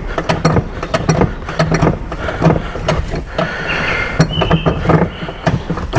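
Rapid, irregular metallic clicks and knocks with a couple of short squeaks, from the clutch linkage of a 1979 Ford Fairmont being worked by hand.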